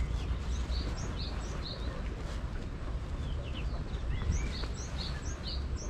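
Small birds chirping: quick runs of short high chirps, one about a second in and another near the end, over a low steady rumble.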